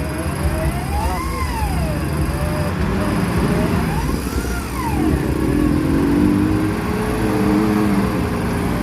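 Off-road 4x4's engine revved up and back down twice, then held at a wavering, labouring note in the second half.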